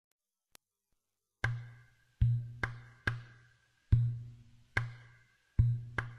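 Deep drum in a music track, struck in a slow, uneven beat. After about a second and a half of near silence come eight low, ringing strokes, each fading before the next.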